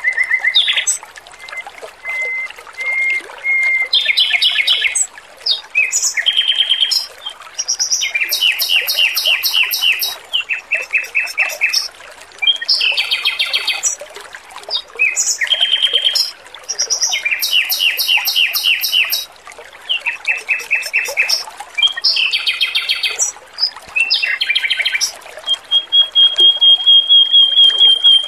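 Male Pekin robin (red-billed leiothrix) singing in quick trilled phrases of rapidly repeated notes, each about a second long, with a long level whistle near the start and another near the end, over a steady trickle of water.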